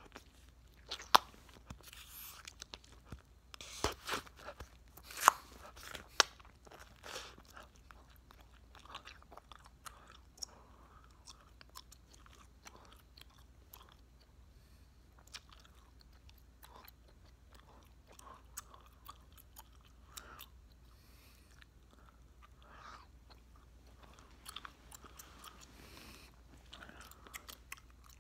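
A large wad of bubblegum being chewed: wet smacking and clicking in the mouth, with a few loud, sharp snaps in the first several seconds.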